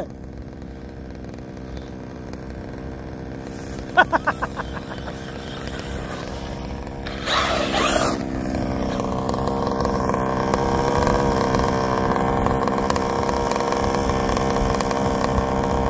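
Large-scale RC Baja buggy's small petrol two-stroke engine running, rising to a louder, steady high-rev drone from about nine seconds in. A brief hiss comes a little after seven seconds.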